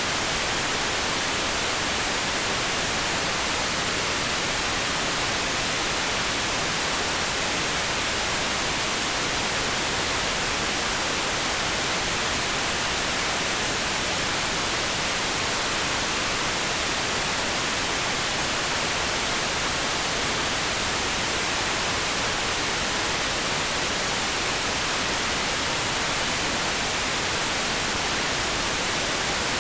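Pink noise: a steady, unchanging hiss of generated noise with no variation at all.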